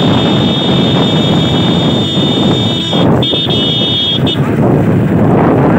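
Wind rushing over the microphone and road noise from a moving motorcycle. A shrill steady tone is held over it, breaks off about three seconds in, sounds again for about a second, then stops.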